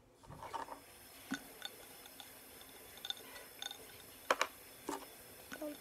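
Faint scattered clicks and taps of small objects being handled at a table, over quiet room tone, with a few sharper ones about a second in and again in the second half.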